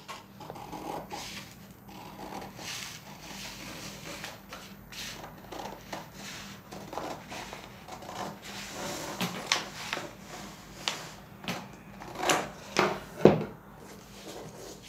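Scissors snipping through a paper pattern sheet, with the paper rustling as it is unfolded and handled. The crisp snips come more often from about nine seconds in, and a sharp knock about thirteen seconds in is the loudest sound.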